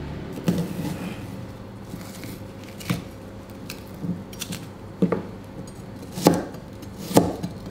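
Chef's knife cutting an onion into wedges on a wooden chopping board: about five sharp knocks of the blade hitting the wood, irregularly spaced a second or two apart, with fainter taps between.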